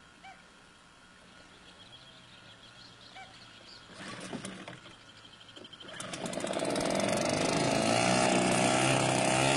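Motorboat engine running faintly at low speed, then about six seconds in it opens up and grows loud, with the hiss of water rushing.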